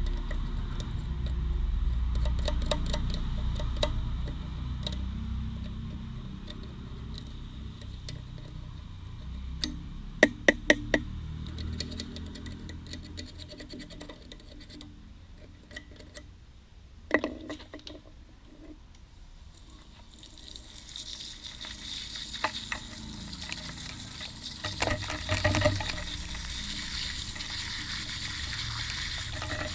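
Water being sprayed onto a motorcycle's rear sprocket to wash off kerosene-soaked grit and mud, with a few sharp metal clicks partway through. A steady spray hiss sets in about two-thirds of the way through.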